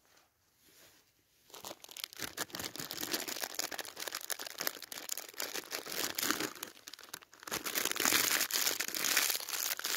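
Plastic biscuit packet crinkling as it is handled. The crackle starts about a second and a half in and is loudest near the end.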